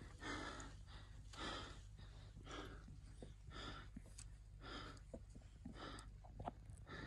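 A climber breathing hard from the exertion of the climb, about one breath a second in a steady rhythm.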